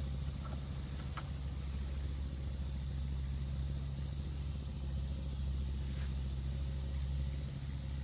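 Insects trilling in one steady, unbroken high-pitched chorus over a constant low hum.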